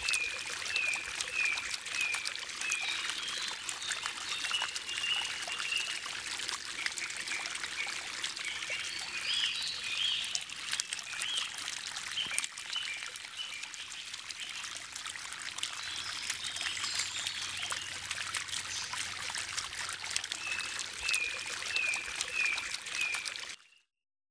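Fountain water splashing and trickling steadily, with birds chirping in short repeated runs near the start, in the middle and near the end. It cuts off suddenly just before the end.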